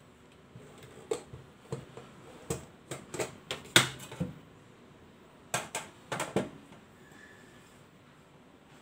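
Knocks and clatter of a RoadPro RPSL-350 12V slow cooker being handled: the unit set down on the table and its white crock insert knocked against the aluminium inner pot as it is lifted out. There are a dozen or so sharp knocks in two clusters, the loudest a little under four seconds in, and the last about a second before the end.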